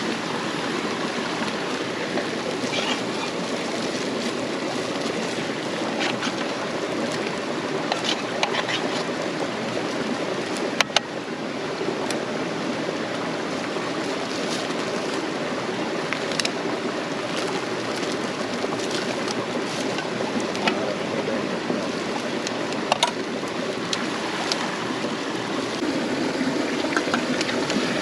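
Steady rushing of a cascading rainforest waterfall stream, broken by a few scattered sharp clicks and knocks.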